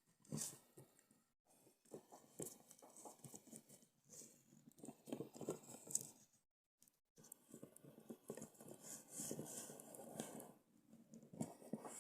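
Faint rustling and scraping handling noise in irregular bursts, broken by brief dead-silent gaps.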